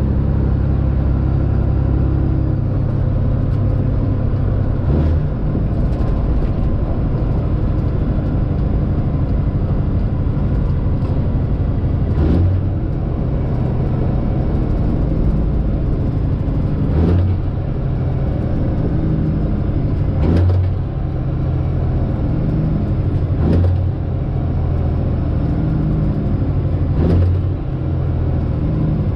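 Straight-piped Detroit Diesel engine of a Freightliner Classic XL semi truck running steadily under way, with a loud, deep exhaust rumble. A short thump comes every three to four seconds.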